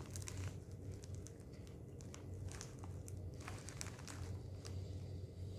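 Faint, scattered crinkling and crackling of a foil snack bag of cheese balls held in the hand, with quiet chewing of the crunchy puffs. A steady low hum runs underneath.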